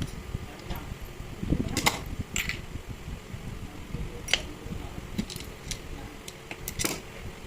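Scattered light clicks and taps of small hard objects being handled, over a low steady rumble.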